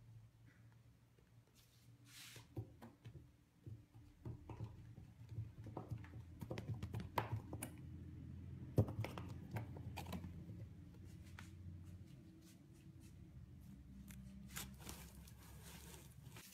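Cardboard box with a kitten inside being pulled along a wooden floor by a ribbon: faint scraping and rustling with irregular clicks and knocks, the sharpest about nine seconds in.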